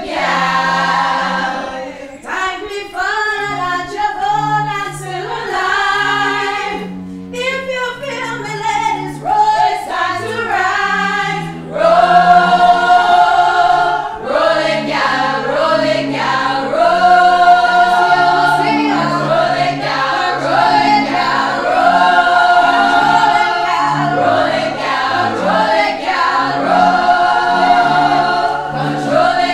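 A group of women singing together as a choir. About twelve seconds in the singing gets louder and stays so.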